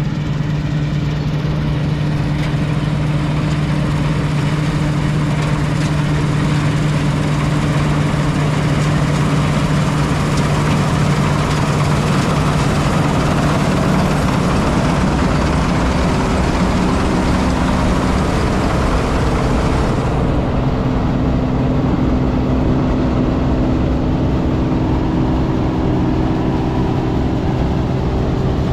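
A 1985 Claas Dominator 96 combine harvester running while cutting barley: a steady engine drone under the mechanical rush of the header and threshing gear. The engine note shifts about halfway through.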